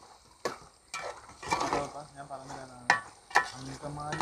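A perforated steel ladle stirs chunks of pork and Chinese potato in a thick masala, scraping the pot with about four sharp clanks against its side. The loudest clank comes about three seconds in.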